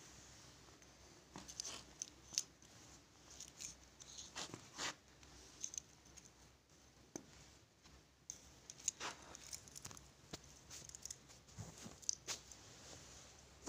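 Irregular small clicks and short rustles of handling noise, scattered and uneven.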